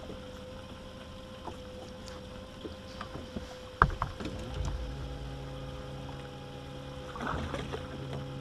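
Electric trolling motor on a bass boat humming steadily, starting up about halfway through, with a sharp knock on the boat deck just before it starts.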